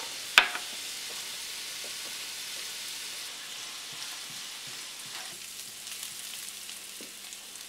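Finely chopped onion sizzling steadily in oil in a frying pan as it is stirred with a spatula. A single sharp knock sounds about half a second in.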